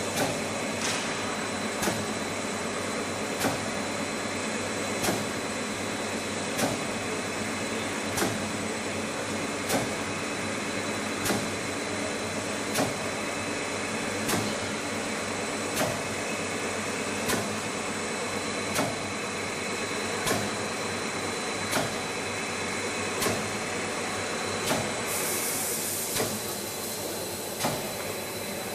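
Spiral paper tube making machine running: a steady mechanical hum and hiss, with a sharp click about every one and a half seconds. The hiss grows brighter near the end.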